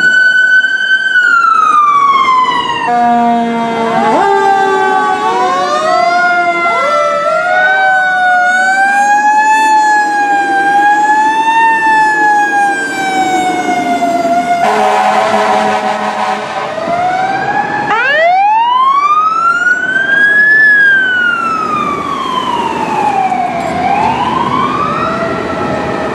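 Several fire apparatus sirens wailing together as a battalion chief's SUV and a ladder truck respond, their pitches sweeping up and down and overlapping. About eighteen seconds in, one siren winds up from a low pitch to a high one and then slowly falls. A horn blasts for about two seconds around fifteen seconds in.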